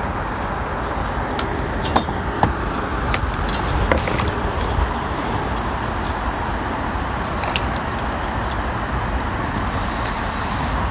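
Steady rushing outdoor background noise with scattered light clicks and taps, most of them between about two and five seconds in.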